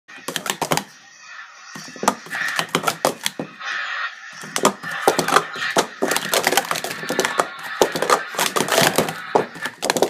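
Plastic sport-stacking cups clacking as they are rapidly stacked up and down into pyramids: a fast, irregular clatter of clicks, with a brief lull about a second in.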